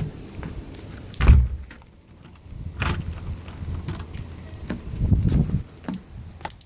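Clatter of knocks and clicks, with a heavy thud about a second in and a longer low rumble about five seconds in.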